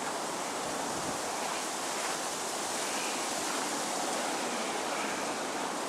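Steady blowing wind, an even hiss with no gusts or breaks.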